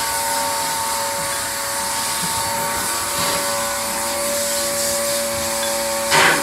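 A motor-driven appliance whirring steadily with a constant hum, and a short, louder noise near the end.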